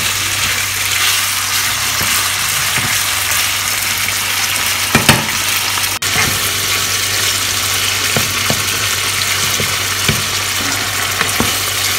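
Chicken pieces and green pepper strips sizzling as they fry over high heat in a non-stick pan to brown the meat, stirred with a wooden spoon. A few knocks of the spoon against the pan.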